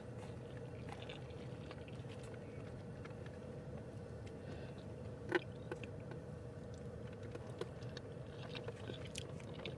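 Quiet chewing of smoked sausage and rice, with small mouth clicks and one sharper click about five seconds in, over a steady low hum.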